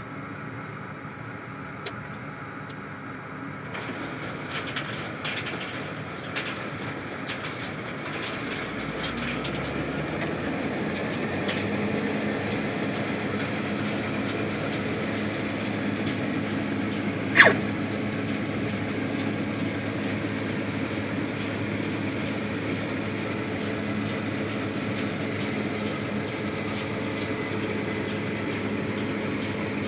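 Case 8120 combine running while harvesting soybeans: a steady engine and machinery drone that grows louder about four seconds in and again around ten seconds in, then holds. A few light clicks come early on, and one sharp click about two-thirds of the way through is the loudest sound.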